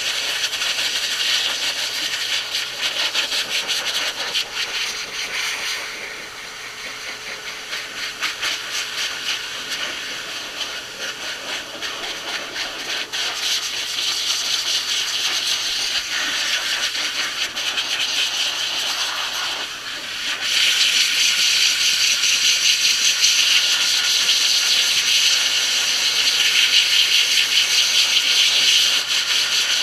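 Pet blow dryer blowing air through its hose and nozzle onto a dog's wet coat: a steady, loud rushing hiss that dips slightly in the middle and steps up louder about two-thirds of the way in.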